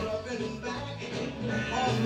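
An oldie plays from an Alexa smart speaker turned up to full volume.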